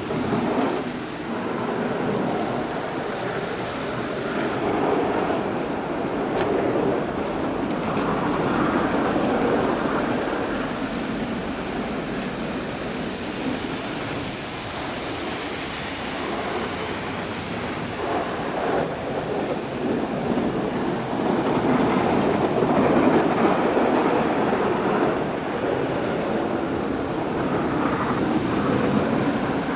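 Snow plows at work, a tractor and plow trucks with engines running and blades scraping and pushing snow. A steady rushing noise that swells a few times as the machines pass.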